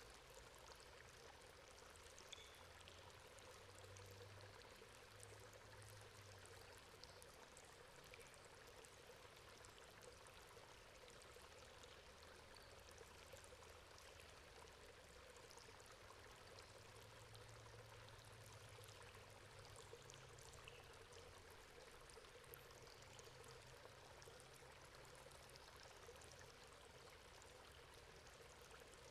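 Faint, steady water running and trickling through a metal grate, with small drips and splashes.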